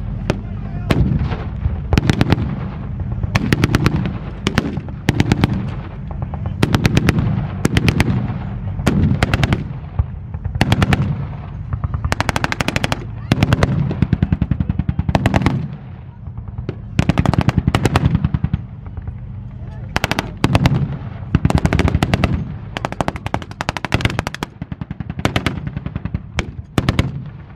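Machine guns firing blanks in repeated rapid bursts, over a steady low rumble of tank engines.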